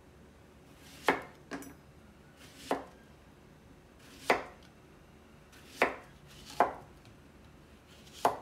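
Kitchen knife slicing a zucchini into rounds on a wooden cutting board: seven unhurried chops, each a sharp knock of the blade through the vegetable onto the board, about one every second or so.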